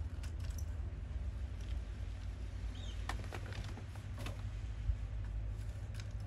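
Steady low rumble of wind buffeting the microphone, with a handful of sharp clicks and light knocks around the middle.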